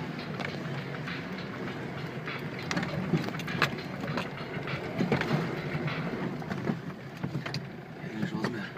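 Opel Campo pickup driving over a rough forest track: the engine runs steadily under a stream of irregular knocks and clicks.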